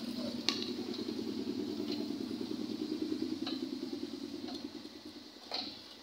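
A homemade electric-motor machine with a chain-and-sprocket drive runs with a steady hum, then dies away about five seconds in. A few sharp metallic clicks sound over it, the loudest about half a second in.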